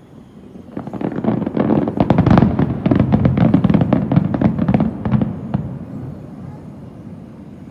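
Aerial fireworks going off in a dense, rapid string of bangs and crackles, starting about a second in and dying away after about five seconds.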